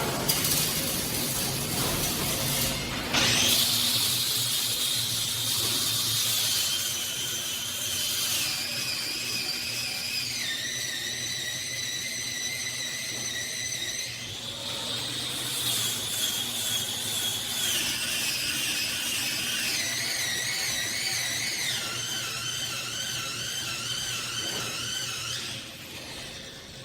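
Machinery of an automated welding robot cell running, heard as high motor whines that step up and down in pitch every few seconds over a steady hiss.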